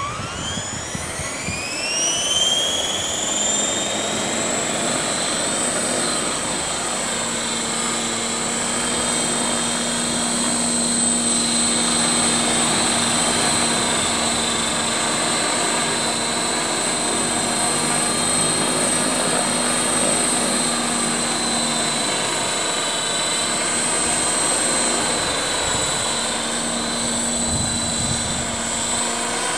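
CopterX 500 SE electric RC helicopter spooling up: the motor and rotor whine climbs steeply in pitch over the first few seconds, then holds as a steady high whine with rotor noise.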